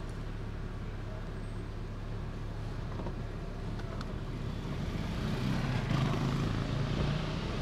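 Steady low hum inside the Fiat Palio's cabin, with two short clicks from the driver's-door power window switch about three and four seconds in. Then a louder stretch of noise lasts about two seconds.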